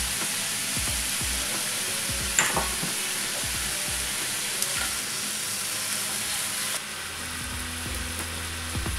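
Beef mince with fried onion and carrot sizzling in a frying pan, with a single sharp knock about two and a half seconds in. The sizzle drops a little about seven seconds in.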